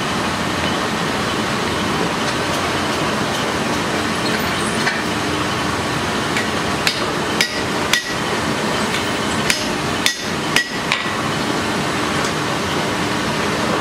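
Blacksmith's hammer striking hot metal on an anvil: about seven sharp, ringing blows in irregular groups starting about seven seconds in, over a steady rushing background noise.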